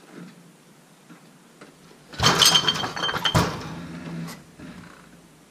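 A heavy cast-iron metal lathe tipping over and landing: a sudden loud clanging crash about two seconds in with metallic ringing, a second hard impact about a second later, then rattling that dies away.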